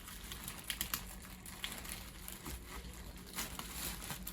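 Packaging being opened by hand: faint crinkling and rustling with scattered small clicks.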